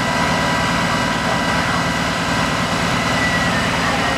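Magirus-Iveco fire engine's diesel engine running steadily while parked, with a steady high whine over the engine noise.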